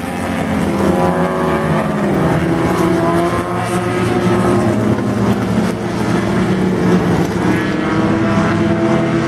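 Several small single-seater race car engines running hard on a circuit, heard together with their pitches shifting up and down as the cars pass and change speed.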